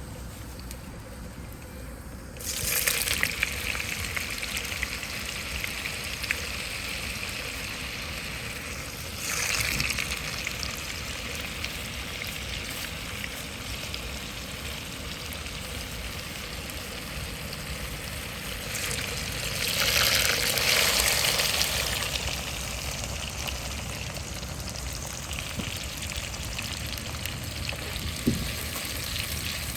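Food frying in a pan: a steady sizzle that starts suddenly about two and a half seconds in and flares up loudly twice more, about nine and twenty seconds in.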